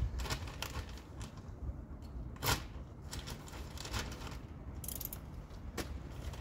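A plastic fertilizer bag being handled, crinkling and crackling in irregular clicks, one louder snap about halfway through, over a low rumble of wind on the microphone.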